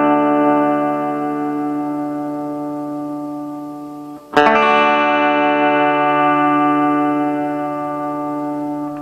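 Solid-body electric guitar on its bridge pickup, played through a Fender Acoustasonic DSP Junior solid-state amplifier. A chord is left to ring and slowly fade, then strummed again about four seconds in and left to ring.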